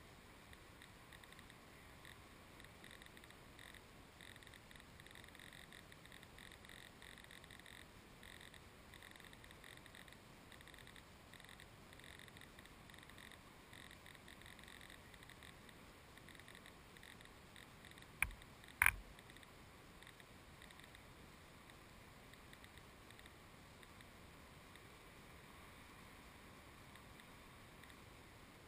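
Near silence: a faint steady hiss, with two sharp clicks about two-thirds of a second apart roughly 18 seconds in.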